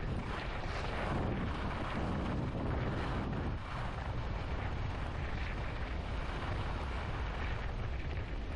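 Wind buffeting the microphone of a skier's camera during a downhill ski run, a steady loud rush with swells in it, mixed with the hiss of skis on snow.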